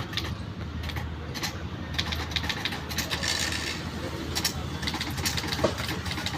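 Typewriter being typed on quickly: irregular rapid clacks of the keys striking, several a second, over a steady low background hum.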